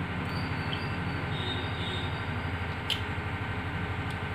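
Steady low mechanical rumble with a fast even flutter, and one sharp click about three seconds in.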